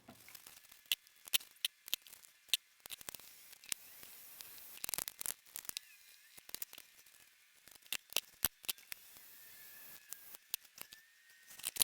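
Irregular sharp clicks and snips with soft rustling between them, from hand work on nylon webbing: cutting and stapling the strap.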